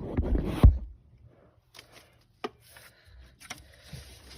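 Metal clinks and knocks of hand tools and a starter bolt being worked: a quick cluster of knocks in the first second, then a few single clicks.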